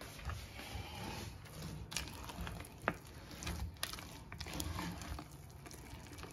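Spoon stirring a thick, wet túró (curd cheese) filling in a bowl: soft squelching with irregular clicks and scrapes.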